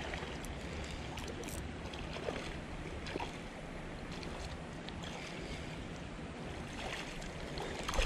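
Steady rush of shallow creek water, with a few small splashes from a hooked smallmouth bass thrashing at the surface.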